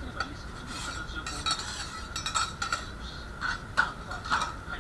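Metal spatulas scraping and clicking on a steel teppan griddle in irregular strokes, several a second, as okonomiyaki is worked, over a steady high hum.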